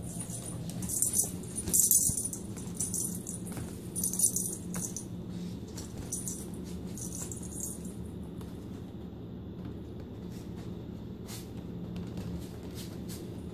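A small jingle-bell cat toy rattling in quick shakes and clusters as it is batted about, most of it in the first half, over a steady low hum.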